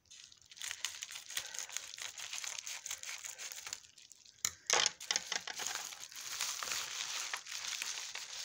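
A paper padded mailer being cut open with scissors and handled: continuous paper crinkling and rustling, with a few sharper, louder crackles about halfway through.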